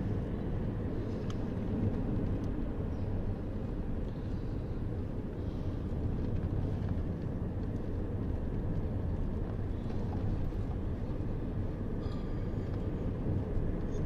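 Steady road and engine noise inside a moving car's cabin, a low even rumble of tyres and engine at city speed.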